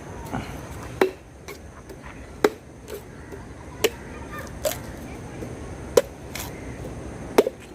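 Machete chopping a tender coconut open: six sharp chops, about one to one and a half seconds apart.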